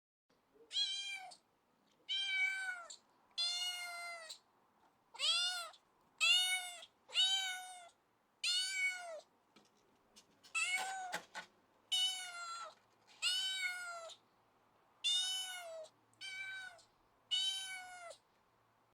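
Domestic cat meowing over and over, about thirteen meows roughly a second apart, each rising then falling in pitch; one just past the middle is rougher and scratchier.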